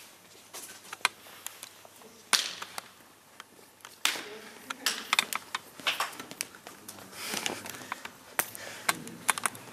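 Sharp, irregular clicks of table tennis balls being hit and bouncing, with voices talking. A loud hand slap of a high five comes about four seconds in, after which the clicks come thicker.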